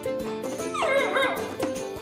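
Background music with steady instrumental notes, and about a second in a husky puppy's short, wavering whine.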